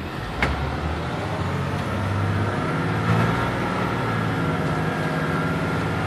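The CAT C7 diesel engine of a 2007 Blue Bird Vision school bus, heard from inside the bus while it drives. The engine grows louder over the first couple of seconds, then holds steady. There is a single click about half a second in.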